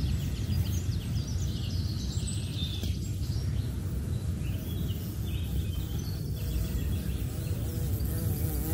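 Small birds chirping and singing in short phrases over a steady low rumble of outdoor background noise.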